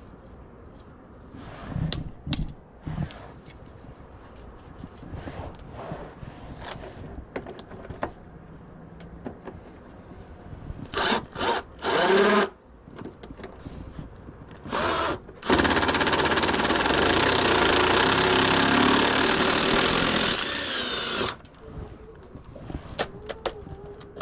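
Handheld power tool: after some scattered knocks and clatter it gives a few short bursts, then runs steadily for about six seconds and stops.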